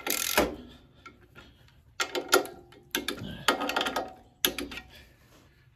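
Click-type torque wrench ratcheting on the clutch pressure plate bolts as they are torqued down, in three short bursts of rapid metallic clicking about two, three and four and a half seconds in. A brief scrape comes at the very start.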